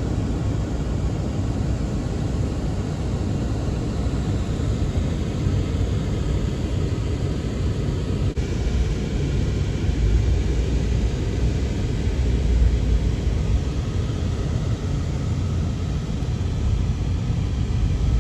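Steady rumble of a car driving, with engine and road noise heard from inside the cabin.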